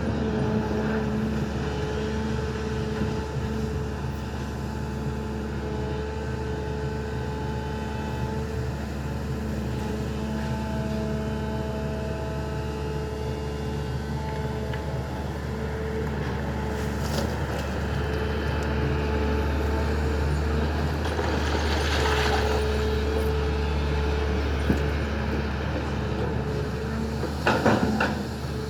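SANY hydraulic excavator working, its diesel engine running steadily with a low rumble and a steady hydraulic whine. A few louder scraping or knocking noises come through, about halfway and near the end.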